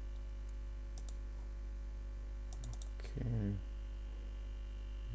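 Computer mouse clicks while browsing folders: a double-click about a second in and a quick run of clicks just before the middle, over a steady low electrical hum.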